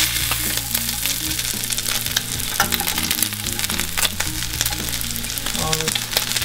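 Shredded pork sizzling and crackling in hot oil in a stainless steel frying pan, with metal tongs clicking against the pan as pieces are lifted out. Background music with a low bass line plays underneath.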